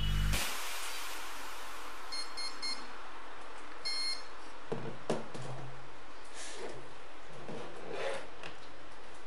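Short electronic beeps from RC radio gear: a quick run of four about two seconds in and a single beep at four seconds, over a faint hiss. A few faint handling knocks follow later.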